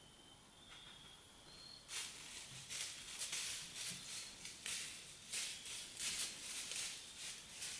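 Irregular rustling crunches in dry leaf litter, about one or two a second, starting about two seconds in.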